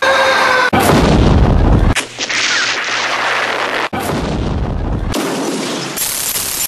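A series of explosion sound effects, spliced together with abrupt cuts: a heavy blast about a second in and another about four seconds in, with hissing noise between and after them.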